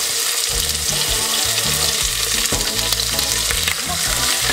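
Quartered onions and veal shanks sizzling in hot olive oil in a stainless steel pot. Irregular low knocks and thuds start about half a second in as the shanks are set down in the pot.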